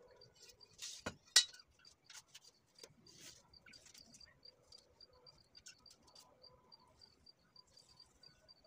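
Scratching and clicking of a metal blade and straightedge worked against a fresh plaster wall, with a sharp click about a second and a half in. A faint high chirp repeats evenly about five times a second behind it.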